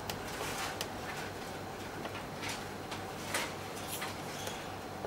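A series of soft clicks from fingers pressing the keys of a Rexroth Indramat BTV04 operator panel keypad, over a steady low hum.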